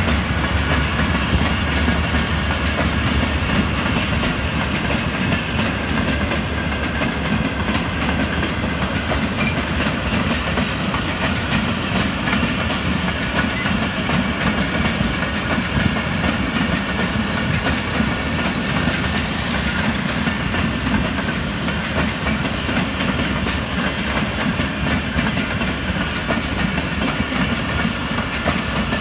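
Pakistan Railways express passenger coaches passing close by at speed: a steady rush of wheels on the rails, with a continuous clickety-clack of the wheels over the rail joints.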